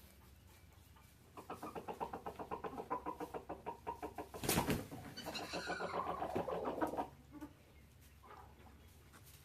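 Chickens in a coop: a run of rapid repeated clucks, about four or five a second. There is a sharp louder note about halfway through and a squawk that rises and falls, and the calls stop shortly before the end.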